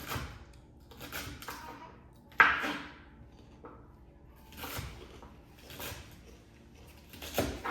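Kitchen knife chopping celery on a cutting board, in separate uneven chops about once a second, the loudest about two and a half seconds in.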